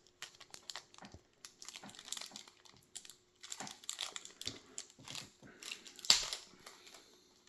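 Paper and plastic packing rustling and crinkling as it is handled, with scattered light clicks and taps; one louder rustle about six seconds in.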